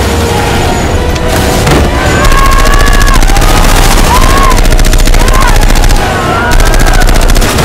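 Automatic rifle fire: rapid, continuous bursts of shots that get louder and denser about two seconds in, with a brief break near six seconds.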